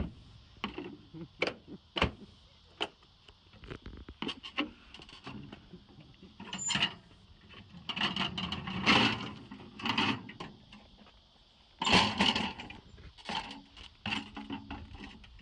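Irregular clicks, knocks and rustling of straps, buckles and fittings being handled in a jet cockpit as a passenger is strapped in, with two louder stretches of rustling around the middle and later.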